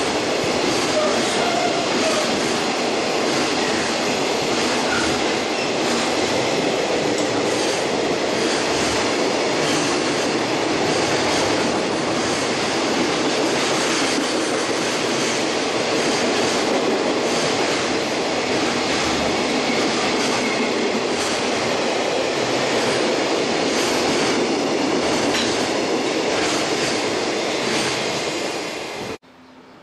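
JR Freight container train passing close by at speed: a steady loud rush of steel wheels on rails with repeated clacks over rail joints. The sound cuts off suddenly near the end.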